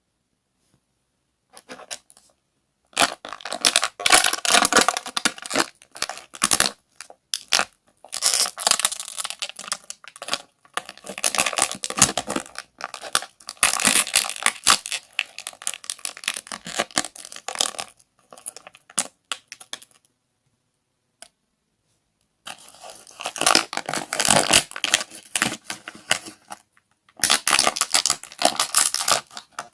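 Plastic packaging being crinkled and torn open by hand in long bursts of crackling, with a pause of a few seconds near the end before two more bursts.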